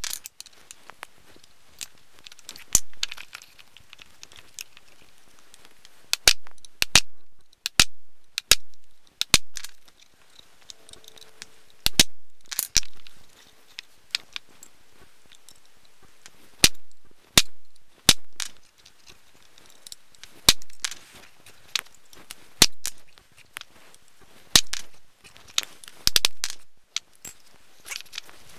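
Hammer tapping a punch to drive the pinion pin into a Wheel Horse differential carrier: about twenty sharp metallic strikes with short ringing tails, irregularly spaced and often in quick runs of two to four, sped up four times.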